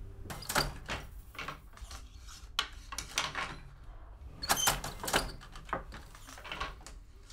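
Wooden hand loom being worked: a run of irregular wooden clacks and knocks, loudest about halfway through.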